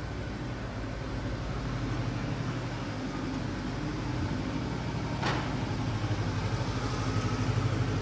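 A motor vehicle engine running with a steady low hum that grows slightly louder, and a short sharp sound about five seconds in.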